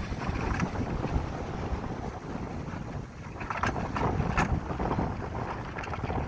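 Wind buffeting the microphone in an uneven low rumble, with two sharp knocks a little after halfway.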